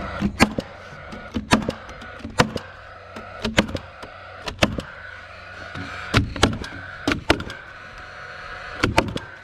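Paslode cordless framing nailer firing nails through a plywood gusset into truss lumber: about a dozen sharp shots at uneven spacing, several of them in quick pairs.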